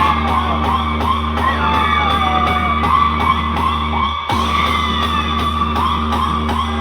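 Loud DJ music played through a large sound system: a heavy steady bass and a fast repeating beat, with repeated swooping sound effects and a brief break about four seconds in.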